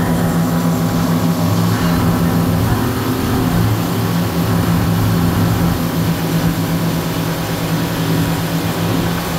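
Motorboat engine running steadily under way, its drone holding one pitch, with the rush of the wake and spray churning behind the boat.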